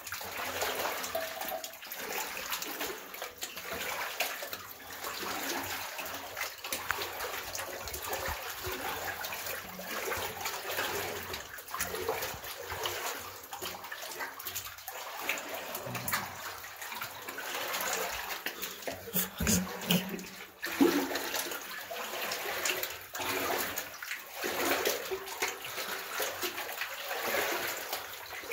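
Wellington boots wading through deep water, sloshing and splashing with each stride, with one sharper, louder splash or knock about three-quarters of the way through.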